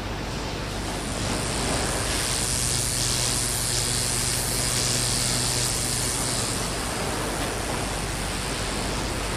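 Single-cylinder four-stroke quad (ATV) engine running steadily under a broad hiss, its hum stepping up slightly about a second in and then holding.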